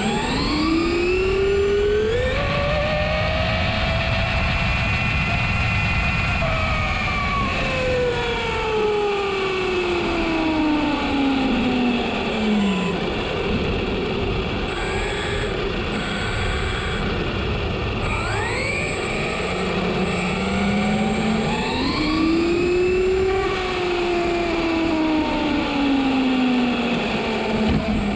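Traxxas Slash 4x4 BL-2S brushless motor and gear drive whining, heard from on board the RC truck over steady tyre and road noise. The whine rises in pitch over the first couple of seconds, holds, then falls away slowly, and rises and falls again in the second half as the truck speeds up and slows down.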